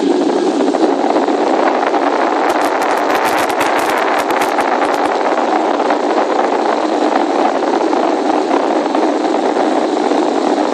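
Steady engine and rushing-air noise inside a Boeing 757's passenger cabin, with a quick run of clicks and rattles from about two to five seconds in.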